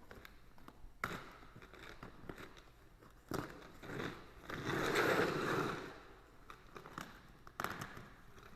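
A cardboard parts box being opened by hand: scattered taps and knocks, then packing material rustling and tearing, loudest about five seconds in.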